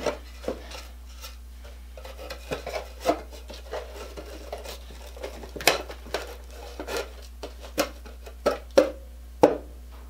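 Pallet-wood boards handled and fitted together by hand: irregular light knocks, taps and scrapes of wood on wood, with a few sharper knocks. A steady low hum runs underneath.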